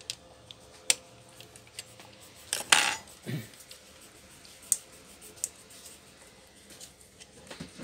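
Scattered sharp plastic clicks and knocks from a laptop's case and inner parts being handled and fitted back together. The loudest is a short clattering rattle about two and a half seconds in.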